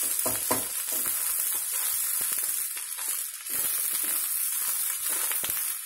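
Egg fried rice sizzling with a steady hiss in a metal kadai over a high gas flame. A spatula stirs the rice and clicks against the pan several times in the first second and once more near the end.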